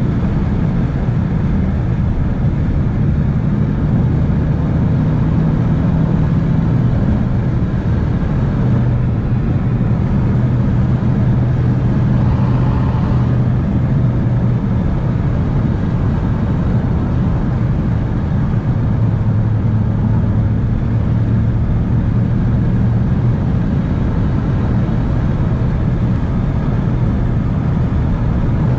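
Ford Mustang GT's 5.0-litre V8 running steadily on the move, heard from inside the cabin over a steady rush of road noise. The engine note shifts a little in pitch now and then.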